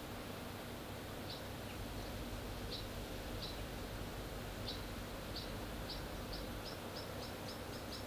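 A bird's short high chirps over a steady background hiss and low hum. A few come scattered at first, then they speed up into a quick run of about three a second near the end.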